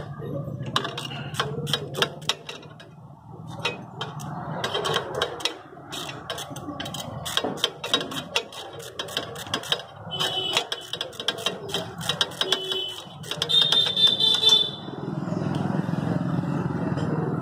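Ratchet wrench with an Allen bit clicking in quick runs as the screws of the kick-shaft cover plate on a Royal Enfield Standard 350 engine are undone. A steady low hum runs underneath, and a short high-pitched tone sounds twice in the second half.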